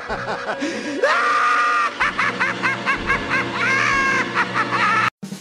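High-pitched cackling laughter with music behind it, in quick repeated bursts, with a long held shrieking note about a second in. It breaks off suddenly near the end.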